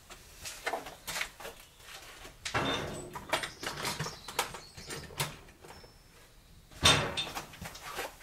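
Drill bits and tools being handled on a workbench: scattered small clicks and clatter, a rustling stretch about two and a half seconds in, and one louder knock about seven seconds in.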